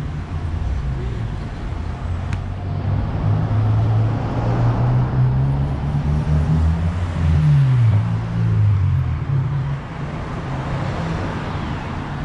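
Street traffic: cars passing on the road close by, with a low engine hum that swells in the middle and falls in pitch once about seven seconds in, as one vehicle goes past.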